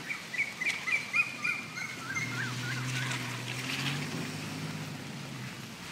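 A quick run of short, high rising-and-falling chirps mixed with sharp clicks. From about two seconds in comes a low, steady drone with a definite pitch, which rises slightly and fades out after about three seconds.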